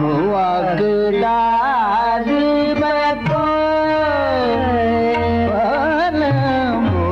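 Hindustani classical thumri in Raag Des: a male voice sings a long, gliding melodic line with quick wavering ornaments, accompanied by tabla.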